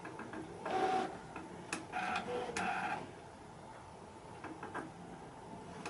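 Brother ScanNCut SDX cutting machine running a cut through double-sided foam. Its motors whir in short bursts with clicks as the cutting head and mat move, busiest in the first half.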